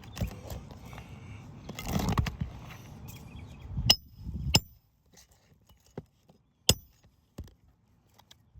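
Hammer driving roofing nails into asphalt shingles: about five sharp, ringing strikes spaced under a second apart, starting about halfway through.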